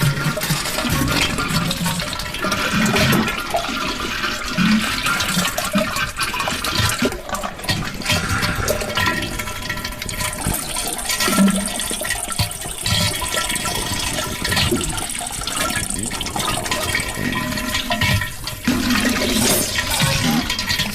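Toilet flushing and rushing, gurgling water, going on steadily with scattered low splashes.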